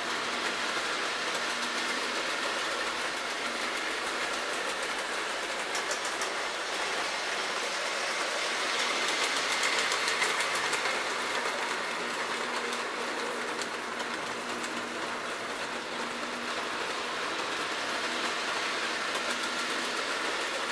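K-Line 3-rail O-gauge Alco diesel model train running on the track: a steady electric-motor hum and wheel rumble that grows louder as it passes about halfway through, with sharp wheel clicks on the rails as it goes by.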